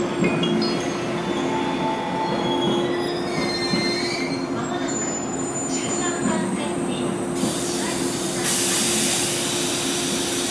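JR 185 series electric train moving slowly through the station, its steel wheels squealing on the rails over a steady hum. A louder hiss comes in about eight seconds in.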